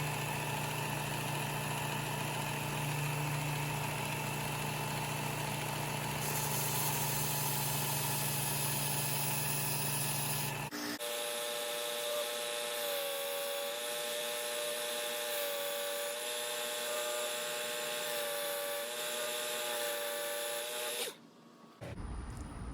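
Work Sharp Ken Onion Edition knife sharpener with the Blade Grinder Attachment: its electric motor and abrasive belt running steadily. About halfway through, the sound changes abruptly to a different, higher-set pitch. The machine stops shortly before the end.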